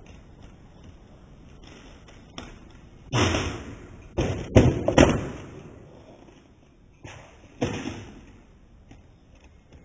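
Skateboard hitting a terrazzo tile floor during tre flip attempts: a hard thud about three seconds in that trails off, then a quick run of three or four loud clattering knocks from the board and wheels, and later two lighter knocks.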